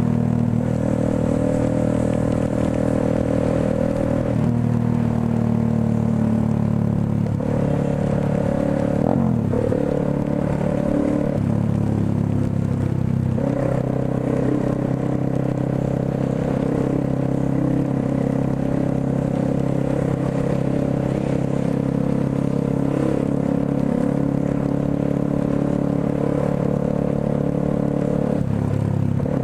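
Motorcycle engine running on the move, its pitch stepping up and down several times as the rider shifts gears and eases on and off the throttle, over a steady hiss of wind and wet road.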